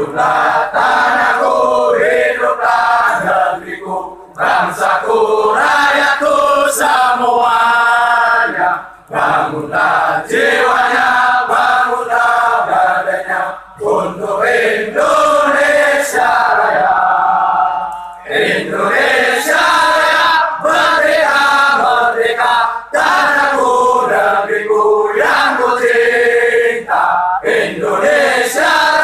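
A large crowd of men singing a song together in unison, in long phrases with short pauses for breath every few seconds.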